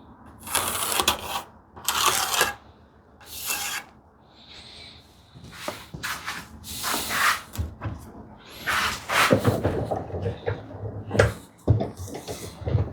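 Hand plane cutting on an ash board: a series of separate rasping strokes, each under a second, with short pauses between them and a few low knocks in the second half.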